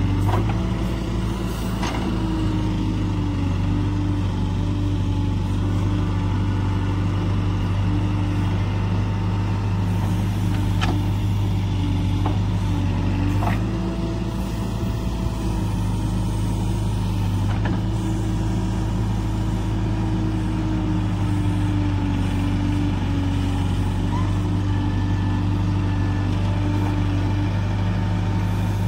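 Case 770EX backhoe loader's diesel engine running steadily under hydraulic load as the arm digs and swings, its pitch wavering with the load. A few faint sharp knocks come through.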